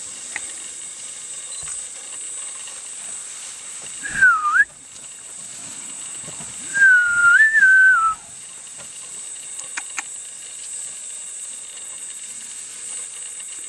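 A person whistling twice, close and loud: a short note that dips and jumps back up about four seconds in, then a longer note that steps up and down a couple of seconds later. Under it runs a steady, thin, high insect drone.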